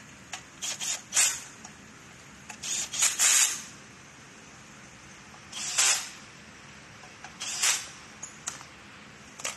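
Cordless drill/driver run in short bursts, about five over several seconds, each under a second, driving the bolts of a motor mounting bracket.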